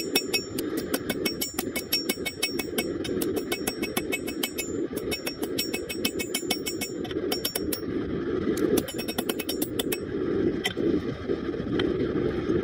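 Hammer blows on red-hot rebar on a steel anvil: runs of quick, ringing strikes, about three a second, that break off about 7 seconds in, come back for a short run around 9 seconds, then two single blows. Under them runs the steady roar of a propane forge's burner.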